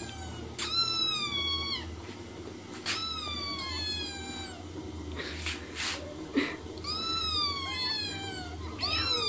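Kittens meowing in four bouts of high-pitched meows that fall in pitch, often two calling at once. A short knock comes about six seconds in.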